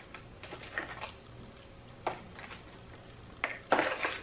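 Snack wrappers and packaging crinkling in several short, separate rustles as candy is handled.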